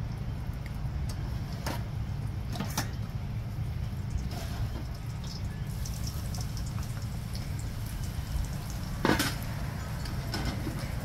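Eggs frying in bacon grease in a stainless steel pan, crackling and sizzling once the pan's lid is off. A few metal knocks and clinks from the lid and pan, the loudest about nine seconds in, over a steady low rumble.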